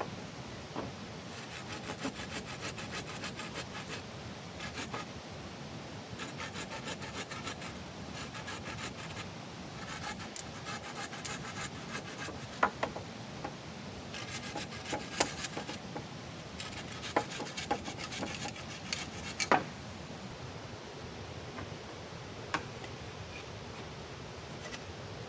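Hand saw cutting through wood in several bouts of quick back-and-forth strokes, with a few sharp knocks in between.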